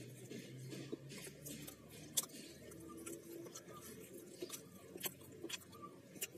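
A man chewing fried chicken nuggets close to the microphone: scattered sharp mouth clicks and smacks throughout, with one louder click about two seconds in.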